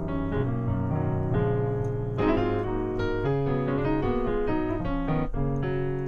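Yamaha Montage M keyboard playing a rich-sounding sampled concert grand piano patch, with a continuous run of chords and melody notes changing every fraction of a second.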